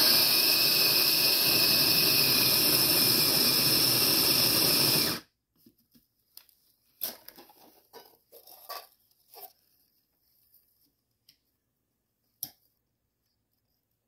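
Sboly electric conical burr coffee grinder running, grinding coffee beans, for about five seconds, then cutting off suddenly. After it come light clicks and knocks as the grounds container is taken off and emptied, with one sharp knock near the end.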